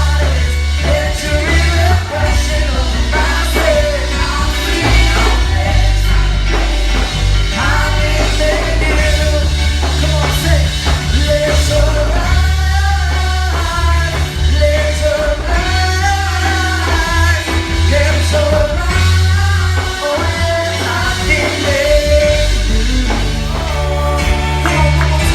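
A song playing: a sung vocal melody over a full band with a heavy, steady bass line.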